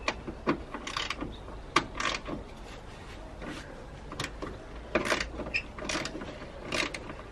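Irregular sharp clicks and plastic taps from hands working the clips and screws of a Nissan Qashqai's air filter box cover loose.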